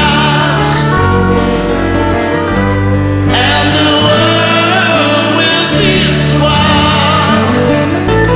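Live acoustic band music: steel-string acoustic guitars and electric bass playing steady chords, with a man singing over them.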